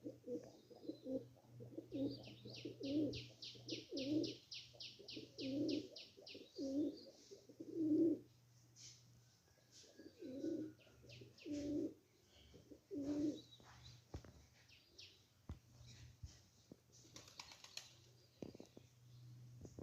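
A dove cooing in repeated low phrases for most of the first two-thirds, with another small bird giving a fast run of high chirps, about four a second, a couple of seconds in, and more chirps near the end. A steady low hum runs underneath.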